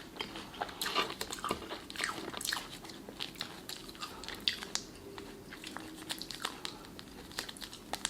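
A person chewing waffle fries dipped in sauce: crunchy, wet mouth sounds with many short crackly clicks.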